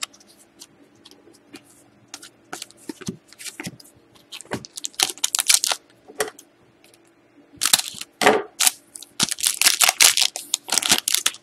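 Foil wrapper of an Upper Deck Artifacts hockey card pack crinkling in repeated crackly bursts as it is handled and torn open, with light clicks of cards being handled before it.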